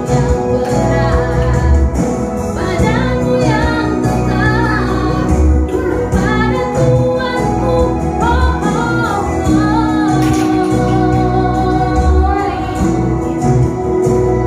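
A woman singing a duet song over accompanying backing music.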